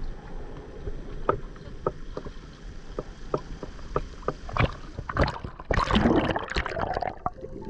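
Shallow sea water sloshing and splashing against a camera held at the waterline, with scattered small splashes and a louder churning, gurgling burst about two-thirds of the way through.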